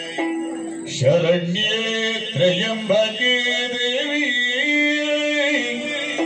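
A man singing a slow, ornamented melodic line over a steady drone. The singing comes in about a second in, after a held drone note, typical of the Bhagavata's singing in Yakshagana theatre.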